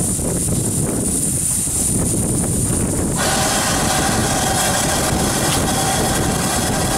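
GWR 4200 class 2-8-0 tank steam locomotive hissing steam over a steady low rumble. A louder, fuller hiss comes in abruptly about three seconds in.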